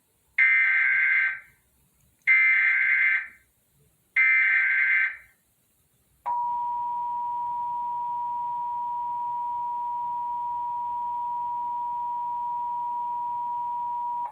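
Emergency Alert System Required Monthly Test tones: three one-second bursts of digital SAME header data, each a warbling cluster of tones, then the steady two-tone EAS attention signal (853 and 960 Hz) held for about eight seconds.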